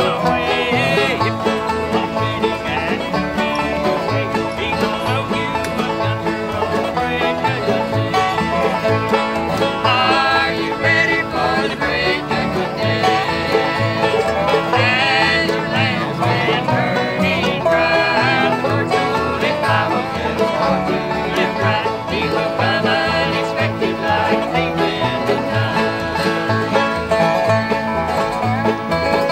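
Live acoustic bluegrass played by a string band: five-string banjo picking with mandolin and upright bass, and voices singing. The bass plucks a steady beat under the banjo.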